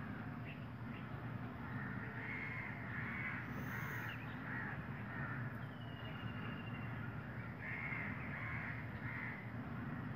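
A crow cawing in two runs of about four caws each, roughly two a second, one about two seconds in and one near the end, over a steady low background hum.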